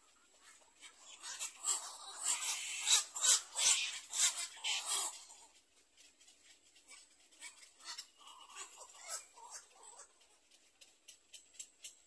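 Black-crowned night herons at the nest giving harsh, rasping chatter: a fast run of calls for about four seconds, then fainter, scattered calls later.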